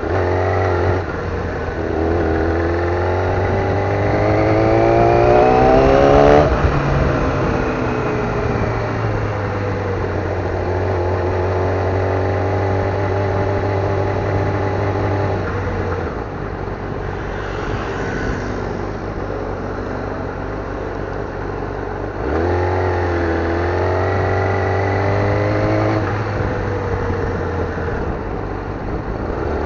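Yamaha YZF-R6 600 cc inline-four engine under way at town speed. The revs climb for several seconds and drop sharply about six seconds in, hold steady, fall away around sixteen seconds, then climb again past twenty-two seconds.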